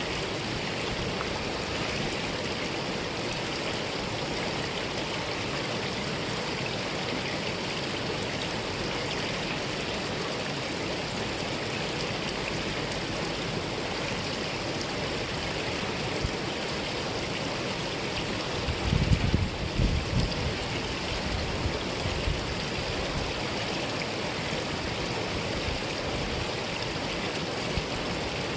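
Mountain valley stream running steadily, an even rush of flowing water. About two-thirds of the way in, a few seconds of low thumps rise over it.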